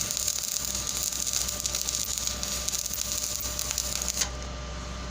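Stick (arc) welding: the electrode's arc crackling and sizzling steadily as a finishing pass is run over a weld on thin 1.6 mm structural steel tube. The arc cuts off suddenly about four seconds in, leaving a low steady hum.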